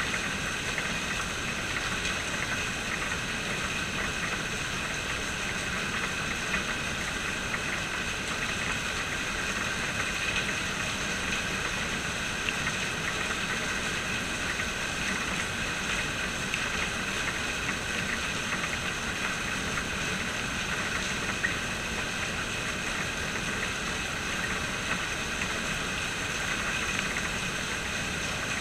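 Steady rain falling, an even hiss with an occasional louder drop ticking.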